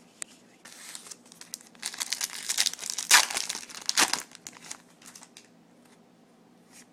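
Foil wrapper of a Yu-Gi-Oh booster pack being torn open and crinkled, a burst of crackly rustling lasting about three and a half seconds, loudest just past the middle, then a few light clicks.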